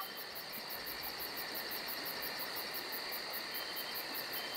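Night-time insect chorus, like crickets: a fast, even chirping of about six or seven pulses a second over a steady high-pitched trill and faint hiss.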